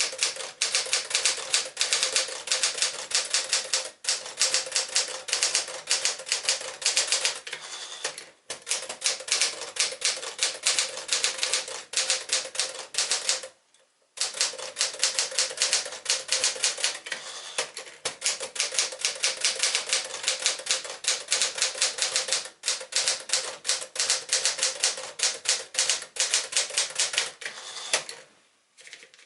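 1963 Smith-Corona Sterling manual portable typewriter being typed on: a quick, steady run of key strikes. The typing breaks off briefly about halfway through, then stops shortly before the end.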